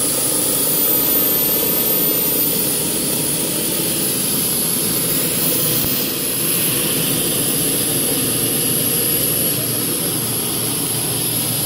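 Nilfisk ES400XLP self-contained carpet extractor running steadily as it is pushed across carpet, its vacuum motor giving a loud, even rush with a steady high whine.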